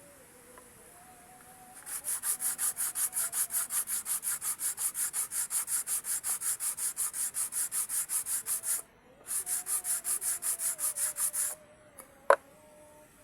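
Hand sanding with sandpaper in quick, even back-and-forth strokes, about five a second, with a brief pause about nine seconds in before a shorter second run. A single sharp click follows the sanding.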